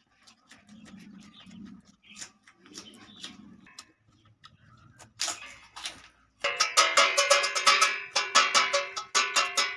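Faint, irregular chewing and mouth sounds of a man eating rice and curry by hand, with a short loud burst about five seconds in. About six and a half seconds in, loud music with a fast, even percussive beat comes in and fills the rest.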